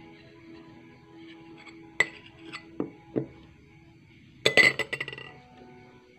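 Spoon clinking against a glass, a few single clinks followed near the end by a quick run of louder ones, over background music.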